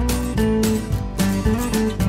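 Background music: strummed acoustic guitar over a bass line, with a steady beat.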